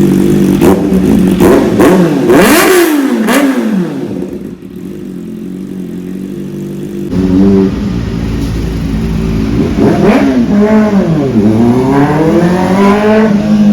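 Kawasaki ZX-4RR's 399 cc inline-four through an SC Project exhaust, idling and then blipped several times, the pitch climbing high and dropping back to idle. After steady idling it is revved again near the end, rising and falling in a longer sweep.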